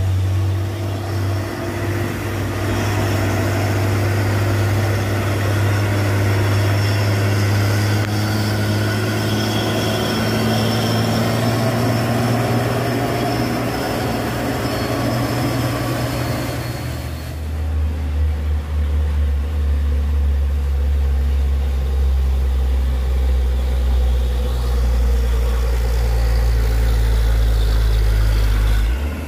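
Diesel engines of trucks pulling up a wet hill, each a steady low drone: first a Hino fuel tanker with a hiss from its tyres on the wet road, then, after a sudden change about two-thirds of the way through, a box truck with a deeper, heavier engine note.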